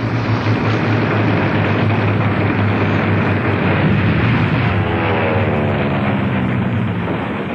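Piston-engined fighter plane in a dive: a loud, steady engine drone, with a whining note that falls in pitch from about five seconds in and fades near the end.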